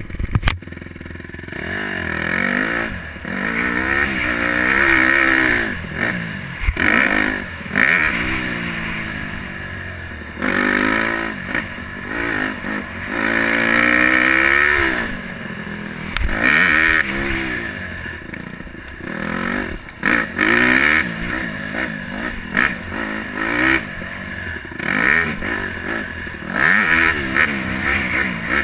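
Small 150R dirt bike's engine, heard close up from the bike, revving up and dropping off over and over as the throttle is worked on and off, with scattered knocks from the rough ground.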